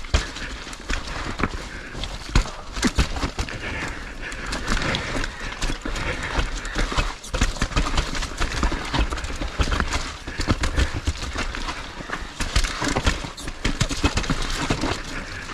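Skis scraping and clattering down a rough snow slope, a steady hiss broken by many quick knocks, with a low rumble of wind on the microphone.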